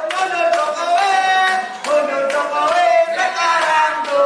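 A group of people singing together with hand clapping on the beat, about two claps a second.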